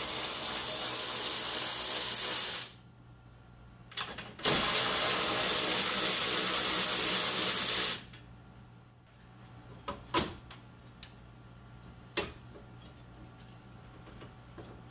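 Cordless electric ratchet running in two spells of a few seconds each, spinning out the bolts of a Jeep Cherokee XJ's upper radiator support, followed by a few sharp clicks and knocks of metal parts being handled.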